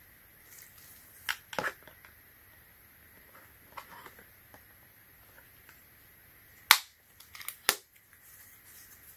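Sharp clicks and knocks from a folding phone in a rugged plastic case being handled and turned over. Two come about a second and a half in, a few lighter ones near four seconds, and the loudest click near seven seconds is followed closely by two or three more.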